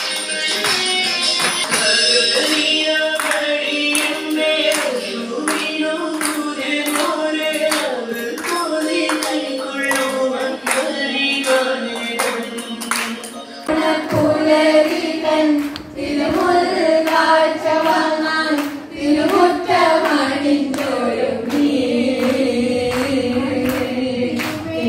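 A song with singing and jingling, tambourine-like percussion plays. About 14 seconds in it gives way abruptly to a group of young women singing together live, with a duller room sound underneath.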